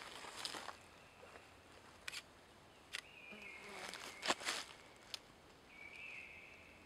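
Dry leaf litter rustling and crackling as a person kneeling on the forest floor shifts and handles gear, with a few sharp clicks and the loudest rustle about four seconds in. Short bird calls sound faintly in the background, twice.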